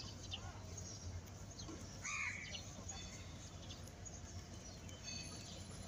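A crow caws once, harshly, about two seconds in, over a faint steady low hum and a few faint bird chirps.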